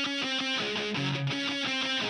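Background music: a guitar intro picking a repeating figure of short notes at a steady level.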